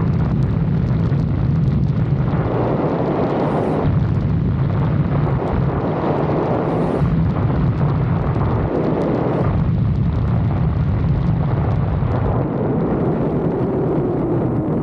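Lexus IS 250 on the move: a steady low hum from its 2.5-litre V6 and the road, with rushing wind noise on the microphone that swells and falls in waves. Near the end a tone drops in pitch.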